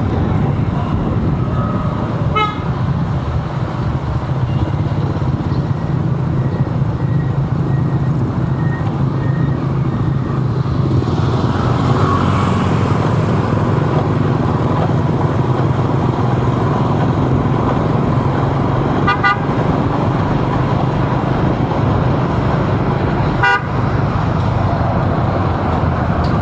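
City traffic heard from a moving vehicle: steady engine and road noise, with three short horn toots, the first about two seconds in and two more near the end.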